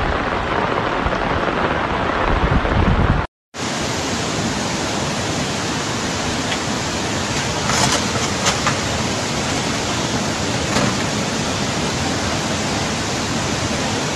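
Steady rushing noise of torrential floodwater and heavy rain. It cuts out briefly about three seconds in, where the footage changes, and carries a few faint knocks around eight seconds in.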